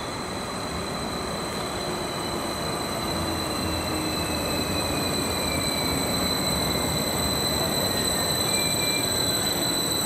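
A train running through the station, its rumble growing slowly louder, with a steady high-pitched whine over it.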